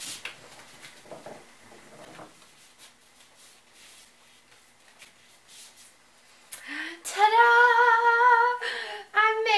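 A woman sings one long, wavering note starting about six and a half seconds in, then a few shorter notes. Before that there are faint rustles and taps of card stock being pressed flat by hand.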